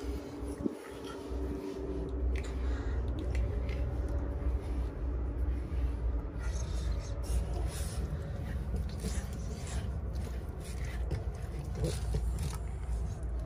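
Rubber massage brush scraping and rubbing through a dog's short coat in short repeated strokes, over a steady low rumble.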